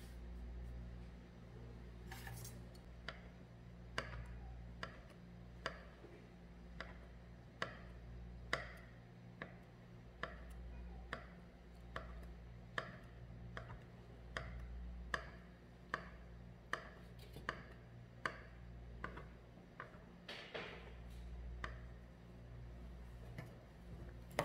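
A knife slicing a rolled-up sheet of tofu snack dough into thin strips, each stroke ending in a sharp tap on the countertop, a little over one cut a second.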